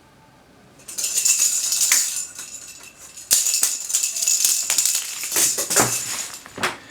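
A cat batting a rattle ball toy around, the beads inside rattling in uneven bursts. It starts about a second in, pauses briefly, then picks up again and runs on in a longer stretch.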